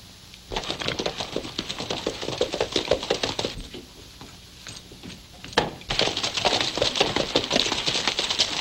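Horses' hooves clattering fast as three riders trot along a dirt track, starting a little past halfway. Before that, a stretch of rapid clattering in the first few seconds, then a short lull.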